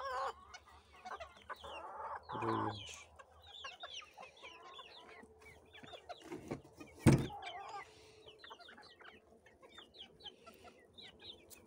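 Flock of chickens clucking, with many short high calls, while being let out of their coops. About seven seconds in there is a single sharp knock, the loudest sound.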